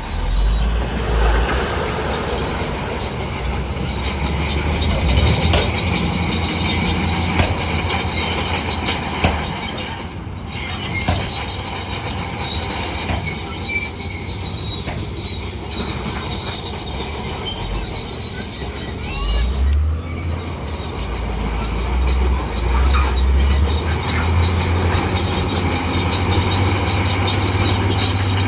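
Crawler bulldozer working: its diesel engine running under load, the note shifting several times, while the steel tracks squeal and clank.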